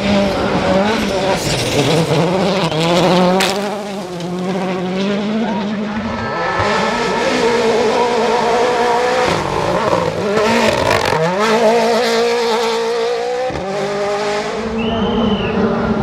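World Rally Car engines, 1.6-litre turbocharged four-cylinders, run hard on a gravel stage as several cars pass in turn. Their pitch climbs and drops again and again through gear changes, with one steep rise about eleven seconds in.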